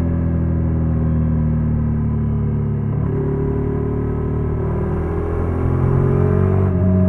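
Honda NC750X's parallel-twin engine running under way at fairly steady revs, its pitch drifting gently and rising a little near the end as it gets slightly louder.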